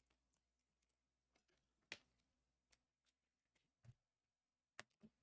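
Near silence, broken by a few faint clicks and taps of trading cards being handled, the clearest about two seconds in.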